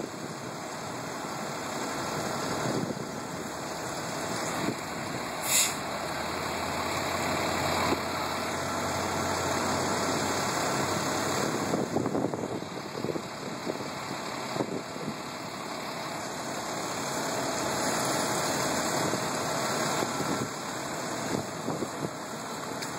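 Fire truck's engine running steadily while it pumps water into the hose lines connected to its pump panel, with a brief high hiss about five seconds in.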